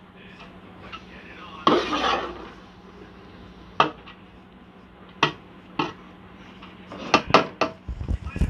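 A metal utensil scraping and clinking against a large metal cooking pot as cooked rice and vegetables are gently mixed in it. There is one longer scrape about two seconds in, scattered single clinks after it, and a quick run of clinks with a few low knocks near the end.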